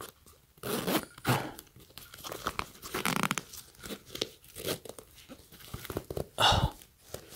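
A zipper on a nylon waist bag being pulled open, with the nylon shell rustling and crinkling as hands spread the compartment apart, in several short rasps.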